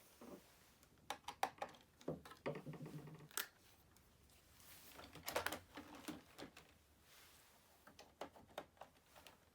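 Irregular clicks, knocks and rattles of hard plastic parts being handled, as on a robot vacuum being taken apart.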